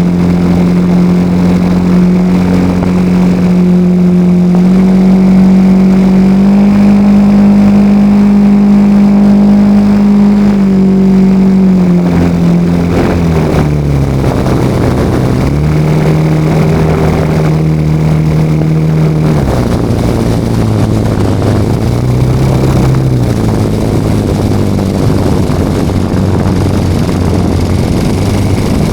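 Radio-controlled L-19 Bird Dog model plane's 40 cc engine and propeller running, heard from a camera on board. The engine steps up in speed twice in the first half, is throttled back about halfway through, rises briefly, then runs lower near the end.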